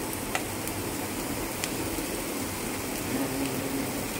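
Mixed vegetables sizzling steadily in oil in a frying pan, with two light clicks near the start.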